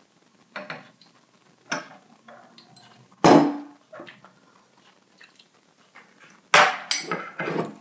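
Sharp clinks and knocks as a syrup bottle, its cap and a stainless steel jigger are handled and set down on a wooden worktop beside a metal shaker tumbler. There are a few single knocks, the loudest about three seconds in with a brief metallic ring, then a quick run of knocks near the end.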